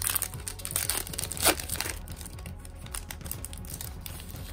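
Foil wrapper of a Panini Hoops basketball card pack crinkling and crackling as it is torn open and the cards are pulled out, loudest about a second and a half in.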